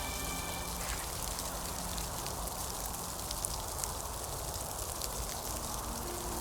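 Rain falling steadily, with scattered faint drop ticks. A few held background-music tones stop less than a second in.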